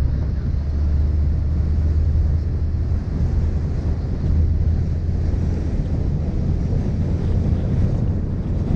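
Wind buffeting a camera microphone mounted on the bonnet of a Mini Cooper S Roadster driving along a street, over a steady low rumble of the car's engine and tyres.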